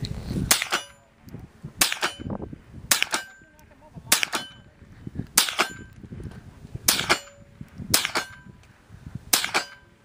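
Henry U.S. Survival Rifle (AR-7), a semi-automatic .22 Long Rifle, fired eight times at a steady pace, a sharp crack roughly every second and a quarter.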